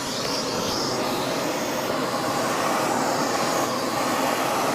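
Shark vacuum cleaner running steadily, a loud rushing of motor and suction air.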